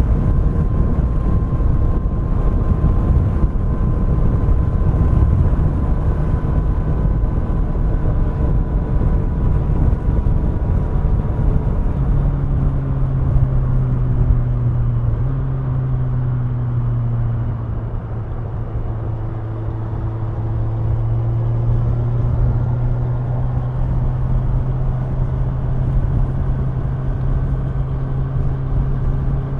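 Kawasaki Ninja 1000's inline-four engine running on the move at a steady speed. A heavy low rush covers the engine for about the first twelve seconds, then the engine's steady hum comes to the fore, its pitch stepping slightly a few seconds later.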